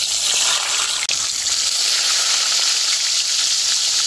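Pangas fish steaks frying in hot mustard oil: a loud, steady sizzle.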